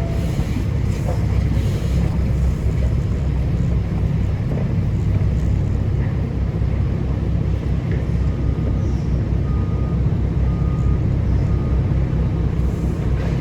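A heavy vehicle's diesel engine running steadily, a continuous low rumble.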